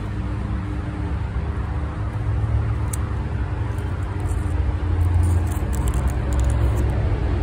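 Steady low rumble that swells about two seconds in and again near the middle, with faint crackling as a hand handles stalks of lemongrass.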